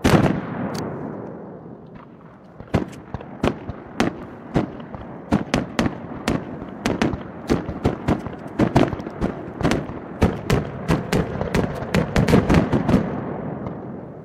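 Aerial fireworks shells bursting one after another: a fast, irregular series of sharp bangs with a rumbling echo between them, the loudest bang right at the start. The smartphone recording is played back three times faster than real time.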